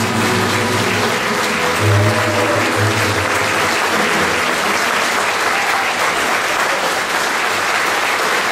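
Audience applauding, a steady clapping throughout. The last held notes of the accompanying music fade out about three and a half seconds in.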